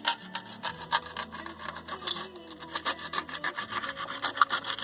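Knife sawing back and forth through a hard PET plastic bottle melted onto a motorcycle exhaust pipe, a quick run of short scraping strokes.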